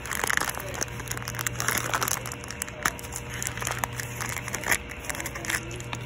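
Clear plastic packaging bag being torn open and crinkled by hand, with irregular crackles and small clicks. A steady low hum runs underneath.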